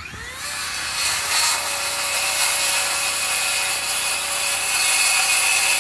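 Handheld circular saw spinning up with a short rising whine, then cutting steadily through a sheet of Advantech engineered-wood subfloor panel.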